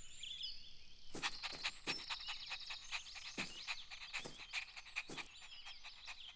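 Cartoon puppy panting in short, quick breaths, two or three a second, as it runs, with faint birdsong chirping in the background.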